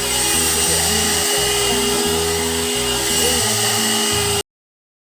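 Hot air brush (one-step hair dryer and styler) blowing steadily with a whining motor, over background music with a bouncing bass line. Both cut off abruptly about four and a half seconds in.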